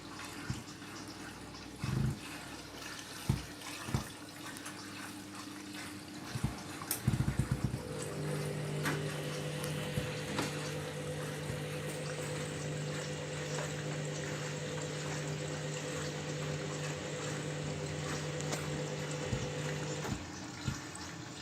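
Candy washing machine in its softener rinse: water splashing and pouring into the drum, with a few knocks in the first seconds. A steady hum joins the water about a third of the way in and stops shortly before the end.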